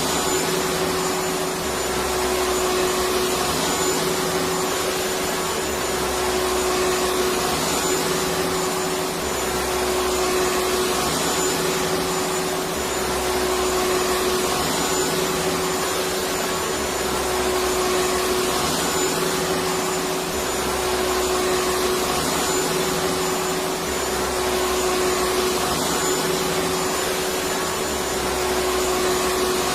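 Electric vacuum cleaner running steadily: a continuous rushing motor noise with a steady whine, and a low rumble that swells and fades about every two seconds.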